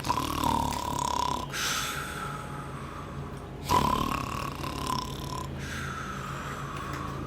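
A man snoring: two drawn-out breaths, each a high whistling tone of about a second and a half followed by a longer breathy rush of air.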